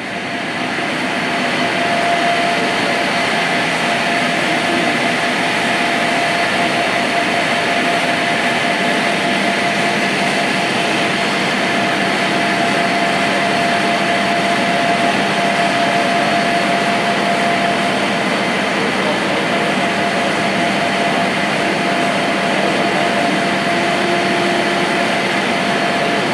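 Processing machinery of a plastic-granule plant running: a loud, steady mechanical din with a constant whine through it, swelling over the first couple of seconds and then holding level.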